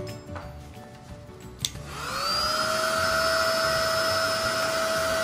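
Hand-held hair dryer switched on with a click about a second and a half in. Its motor winds up with a rising whine and then runs steadily, blowing hot air onto a vinyl phone skin to soften it so it can be pressed around the edges.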